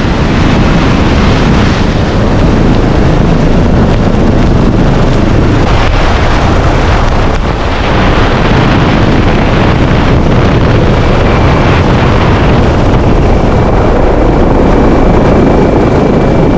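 Helicopter rotor and engine noise heard through heavy wind buffeting on a microphone mounted outside the fuselage, steady and loud as it flies low along the runway to land. A faint high whine comes in over the second half.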